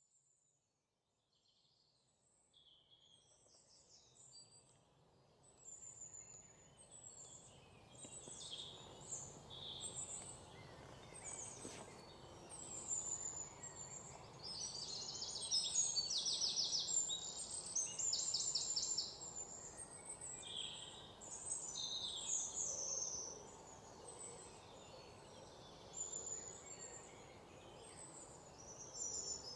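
Several small birds chirping and singing, overlapping short high calls with fast rattling trills, loudest in the middle, over a faint steady background noise. The birdsong fades in over the first few seconds.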